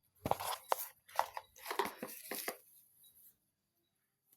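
Rustling and scraping of the speaker's packaging being handled: several short bursts of rustle in the first two and a half seconds, then quiet.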